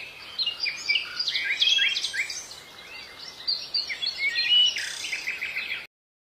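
A chorus of small birds chirping and singing, with many quick overlapping chirps and trills, cutting off suddenly just before the end.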